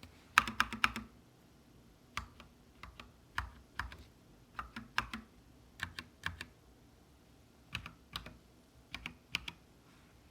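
GMMK mechanical keyboard with Gateron Black linear switches and ABS doubleshot keycaps being typed on. A quick run of keystrokes comes first, then separate key presses every half second or so, each a pair of clicks on press and release, ending shortly before the end.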